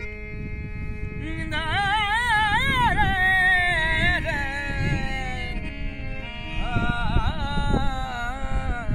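Rajasthani folk music: a man sings long, wavering, ornamented phrases over a steady harmonium drone. The voice comes in about a second and a half in and starts a second phrase near the end.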